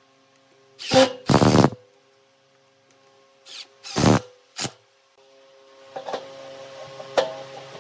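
Cordless drill-driver in short bursts, driving screws through a steel lathe faceplate into the end grain of a log, about five spurts in the first five seconds. Then a few metal clicks and knocks as the faceplate is threaded onto the lathe spindle.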